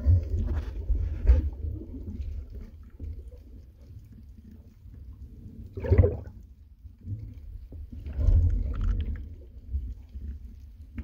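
Muffled underwater noise from a phone filming while snorkeling: a steady low rumble of water moving against the microphone, with brief louder gurgling surges at the start, about six seconds in, and again around eight seconds.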